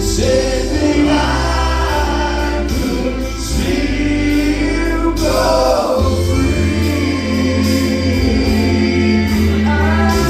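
Southern gospel group singing with instrumental backing, several voices together over low held bass notes that shift about six seconds in.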